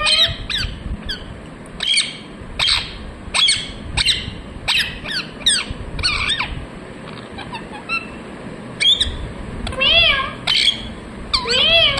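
Indian ringneck parrot calling: a run of short, sharp chirps about two a second, then a few longer warbling squawks near the end.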